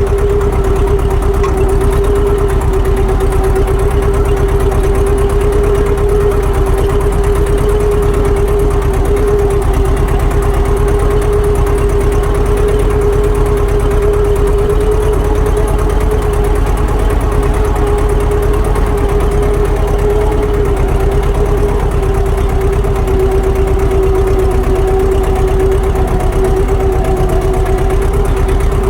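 Tractor's diesel engine running steadily at an even speed, with a constant hum and no revving.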